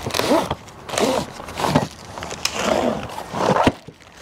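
Hands rummaging through the workbench's packaging and hardware: rustling and handling noises, with a few short squeaks.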